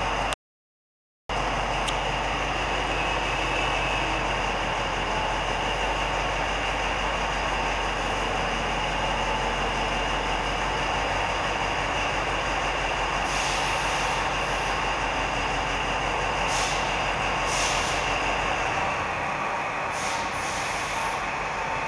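Large mining haul truck's diesel engine running steadily as the truck is manoeuvred slowly, with several short hisses of air in the second half. The sound cuts out briefly near the start.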